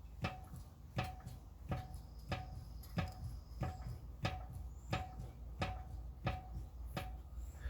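Homemade treadle-clutched power hammer, driven by a 2-horsepower electric motor, striking steadily at about one and a half blows a second, each blow a sharp knock with a short metallic ring, over the motor's low hum.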